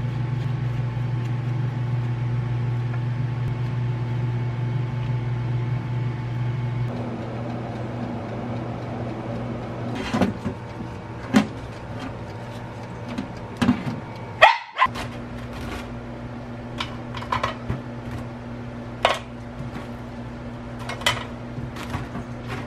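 Steady electric appliance hum in a kitchen, which drops lower about seven seconds in. After that come scattered short, sharp clicks and clacks, with the loudest a little past halfway.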